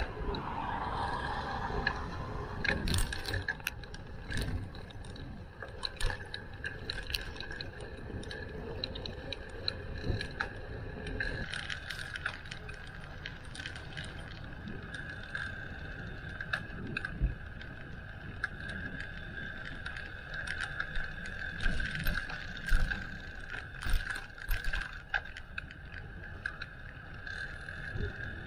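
Bicycle ride heard from the bike itself: a steady rumble of tyres and wind under frequent sharp rattles and clicks from the bike's parts over the road surface, with a steady high tone that grows stronger about a third of the way in.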